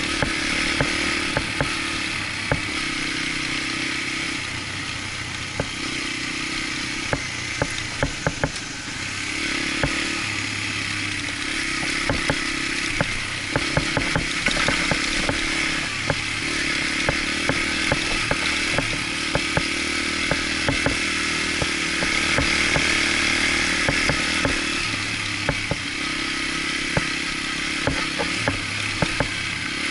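Dirt bike engine running while riding, its pitch stepping up and down with the throttle, with frequent sharp knocks and clatter throughout.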